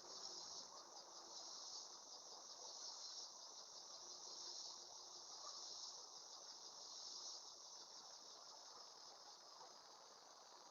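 Faint insect chorus: a steady, high, finely pulsing trill of many insects.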